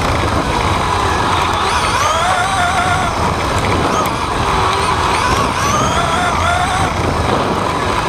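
RC off-road buggy's motor and drivetrain whining, the pitch rising and falling over and over as the throttle is worked through the turns, over a steady low rumble from the onboard microphone.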